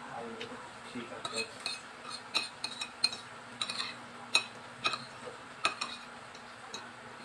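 Spoon and fork clinking and scraping against a plate while eating: a series of short, sharp clinks, over a steady low hum.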